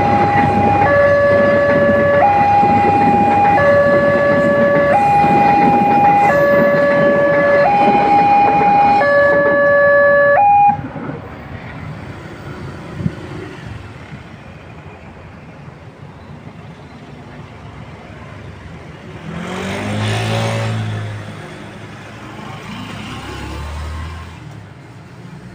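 Railway level-crossing warning alarm sounding two alternating tones, each held about a second and a quarter, over the rumble of a passing train; both cut off suddenly a little before halfway. Later a motorbike engine swells and fades as it crosses.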